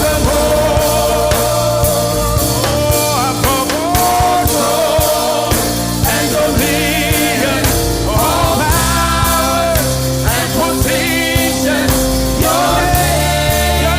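Gospel praise song: lead vocals singing over a full band with bass and drums.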